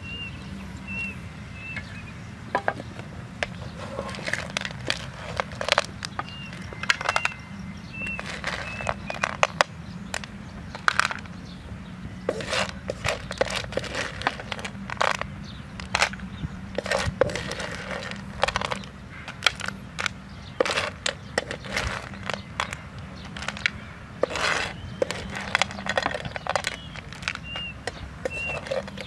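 Small snails in their shells clattering and scraping against a frying pan as a spatula stirs them and scrapes them across the pan, in irregular sharp clicks and scrapes.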